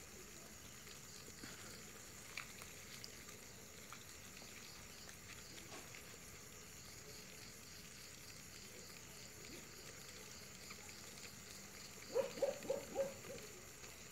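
Night insect chorus: a steady high shrill with a fast pulsing note, with a few faint clicks. Near the end an animal gives a quick run of about five short, low calls, the loudest sound here.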